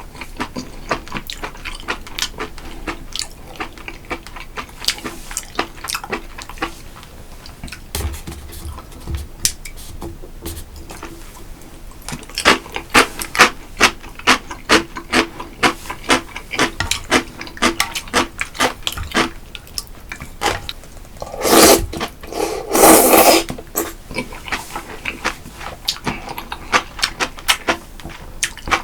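Close-miked eating: a run of wet chewing and mouth clicks, thickest in the middle, with two loud slurps about 21 and 23 seconds in.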